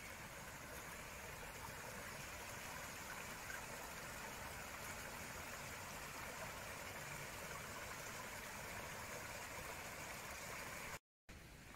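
Small creek running steadily, a faint even rush of water. The sound cuts out briefly near the end.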